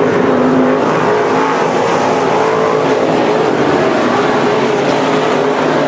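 Several dirt-track modified race cars' V8 engines running hard at once during a race, a loud, steady mix of engine notes that waver slightly in pitch as the cars circle the track.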